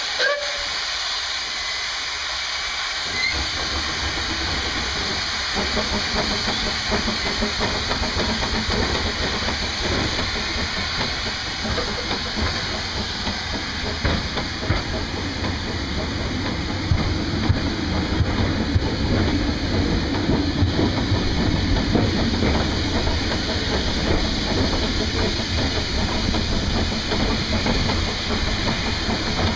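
Narrow-gauge steam locomotive hissing steam, with a short burst right at the start. About three seconds in, a low rumble of the train moving builds in under the hiss and carries on as it runs along the line.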